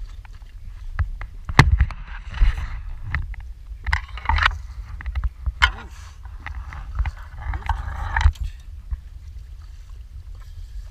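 Wind rumbling on the microphone, with water splashing and slapping against the side of a small boat in several short spells, and a few sharp knocks.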